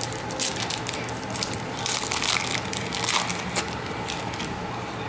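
Trading-card pack wrapper being torn open and crinkled by hand, as a run of irregular crackles from about half a second in to about three and a half seconds in.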